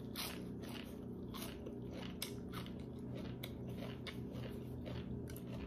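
Close-up chewing and biting of crisp raw vegetables, with irregular crunches about three times a second over a steady low hum.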